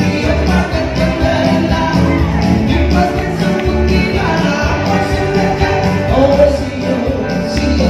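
Loud upbeat dance song with singing over a steady bass beat.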